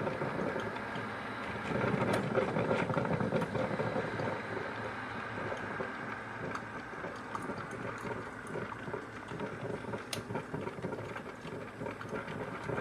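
ZWILLING Enfinigy drip coffee maker brewing, making a steady, rough, churning sound without a break.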